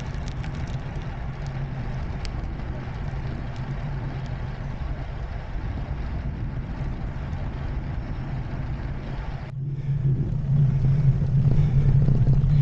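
Steady wind buffeting the microphone and road noise from a bicycle riding along. It drops out for a moment about nine and a half seconds in, then comes back with a louder low rumble.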